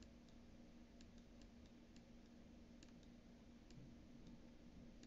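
Near silence with faint, irregular clicks, about a dozen, over a low steady hum: the clicking of writing on a digital whiteboard.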